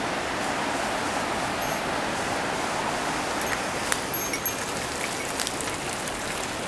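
Steady rush of water flowing over the rocks of a shallow stream, with scattered snaps and rustles of footsteps through dry undergrowth from about three and a half seconds in.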